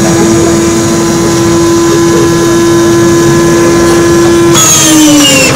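Electric inertia starter of an Antonov An-2's ASh-62IR radial engine, its flywheel spun up and whining at one steady high pitch. Near the end it is engaged to the engine: the whine falls in pitch as the flywheel starts turning the engine over, with a rush of noise from the cranking engine.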